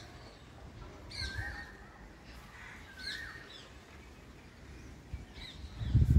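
Birds calling, a short gliding call every two seconds or so over faint background noise, with a loud low rumble near the end.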